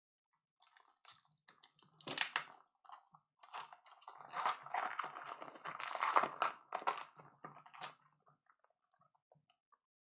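Crinkling and tearing of trading-card pack wrappers being ripped open by hand: irregular crackling that comes in two louder spells and dies away near the end.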